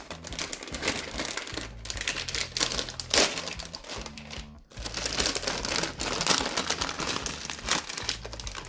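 Packaging crinkling and rustling as a pack of play-dough shape cutters is torn open and handled, with a brief pause about four and a half seconds in.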